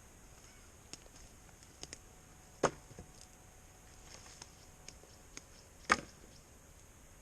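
Dry sticks and branches knocking and cracking as they are handled and laid onto a pile: two louder sharp knocks about three seconds apart, with lighter clicks and snaps between.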